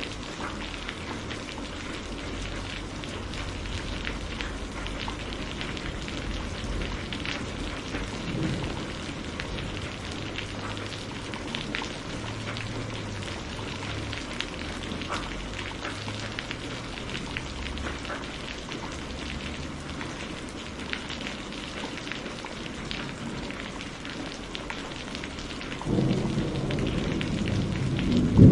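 Steady rain falling, with single drops ticking close by over a low rumble. Near the end thunder breaks in suddenly and builds to a loud clap.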